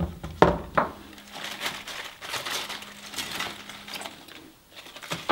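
A few sharp knocks of kitchen utensils against the counter in the first second, then crisp lettuce leaves rustling and crinkling as they are handled and pulled apart by hand.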